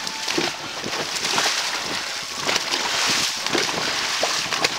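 Dragon boat paddlers stroking hard: paddle blades catching the water in repeated splashes over a steady rush of water.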